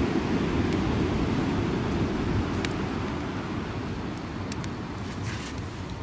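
Steady low rumble of ocean surf and wind on the microphone, easing a little, with a few faint crackles and pops from the burning wood fire.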